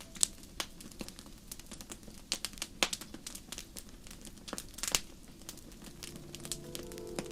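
Wood fire crackling: irregular sharp pops and snaps from burning logs over a soft hiss. Sustained music tones come back in near the end.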